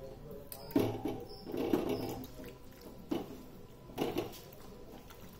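Raw boneless chicken pieces dropping into a wet spice-and-egg marinade paste in a steel bowl and being worked in by hand: four short bouts of wet slaps and squelches, the sharpest about a second in.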